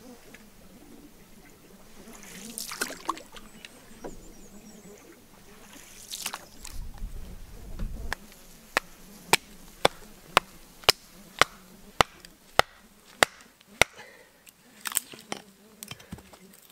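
Wood being chopped: a steady run of about ten sharp knocks, roughly two a second, starting about nine seconds in, after a few softer rustling swishes.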